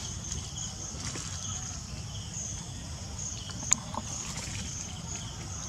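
Outdoor ambience: insects chirping in repeated high-pitched pulses over a steady low rumble, with one sharp click a little past halfway.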